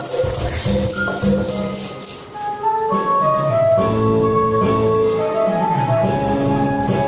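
Music from a church choir performance: an accompanied passage of held notes that swells into fuller, louder sustained chords about three seconds in.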